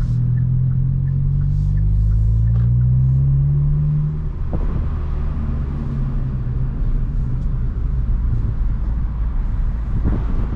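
Hyundai i20 N's 1.6-litre turbocharged four-cylinder heard from inside the cabin, pulling in gear with its note rising steadily for about four seconds. The note then drops suddenly, and steady engine and tyre noise follows while the car cruises.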